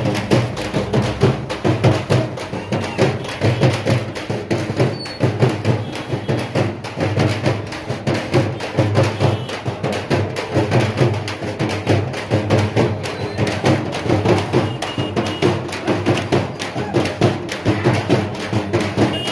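Music driven by fast, dense drumming, with loud, rapid strokes keeping up a steady beat.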